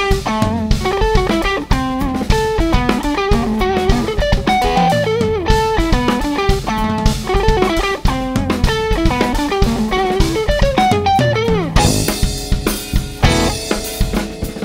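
Band playing instrumental music with electric bass and drum kit under a lead line of quick notes with pitch bends, most likely electric guitar. The keyboard is silent most of the time and comes back in near the end, where the texture changes.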